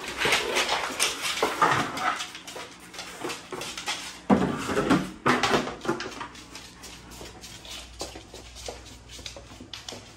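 Two Belgian Malinois moving about on a hardwood floor, their claws clicking, with louder bursts of dog sound about a second in and, loudest, about four seconds in.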